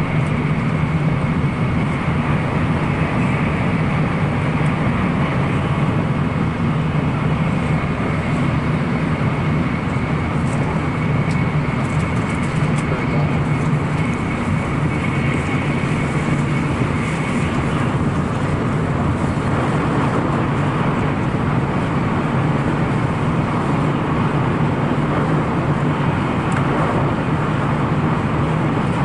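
Steady running noise of a Shinkansen bullet train at speed, heard from inside the passenger car: a low rumble and hum, with a thin high whine that fades out a little past halfway.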